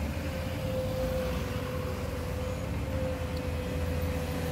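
Volvo hydraulic excavator's diesel engine running steadily, with a steady whine, as the bucket empties gravel into a dump truck's bed and swings back.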